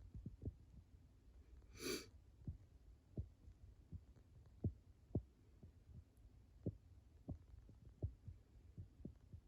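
Faint, irregular low thumps, with one short high-pitched squeak about two seconds in.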